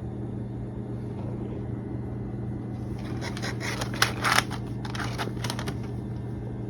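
Packing paper rustling and crinkling in irregular bursts as a cat plays in it, starting about halfway through, over a steady low hum.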